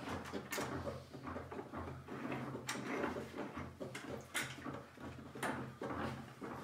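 Wooden steam box being opened at its end and a steamed oak rib drawn out by gloved hands: about four sharp wooden knocks and clunks with scraping between them, over a steady low hum.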